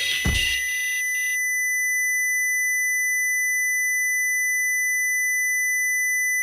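Electronic music cuts off in the first second with a falling sweep, leaving one steady, high-pitched electronic ringing tone that holds unchanged. It stands for the ringing of tinnitus.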